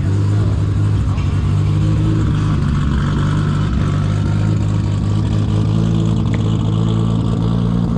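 Car engine idling steadily, loud and close, its pitch holding level throughout.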